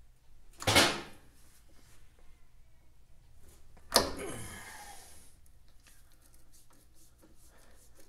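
Two loud clunks from a hand tool working a seized screw in the bottom of a Norton Atlas aluminium crankcase, about three seconds apart, the second sharp with a short ringing tail.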